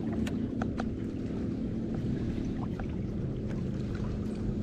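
Water lapping lightly against a small boat's hull over a steady low hum, with scattered small ticks.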